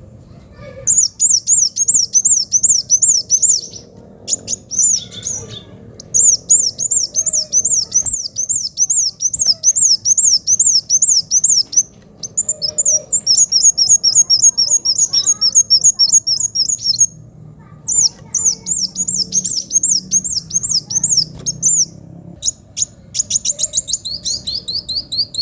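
Kolibri wulung sunbird singing loudly in long, fast, high-pitched trilled phrases of a few seconds each, with brief pauses between; the last phrase is faster and higher.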